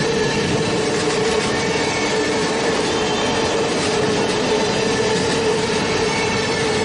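Eurostar high-speed train running: a steady rush of rail and running noise with a constant droning tone through it, unchanging throughout.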